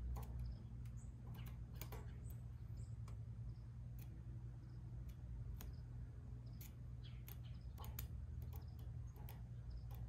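Irregular faint clicks and ticks of a thin 6013 welding rod, fed from a car battery through jumper cables, being tapped and scratched against a steel plate: the battery's current is too weak to strike and hold an arc. A steady low hum runs underneath.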